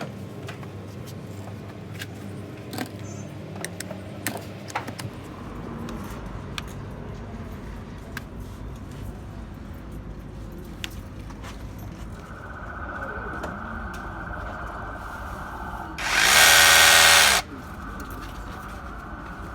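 A 21-volt cordless hammer drill runs in one short burst of about a second and a half, late on. Before that there are small clicks of handling, and a faint steady high tone comes in partway through.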